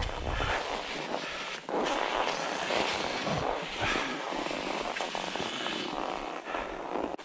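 Cross-country skis gliding and scraping over groomed, tracked snow: a steady, rough hiss with a brief dip about a second and a half in.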